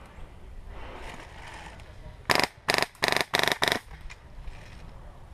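HPA-powered CYMA RPK airsoft gun with a Wolverine Inferno Gen 2 engine firing five short full-auto bursts in quick succession, each a rapid rattle of shots.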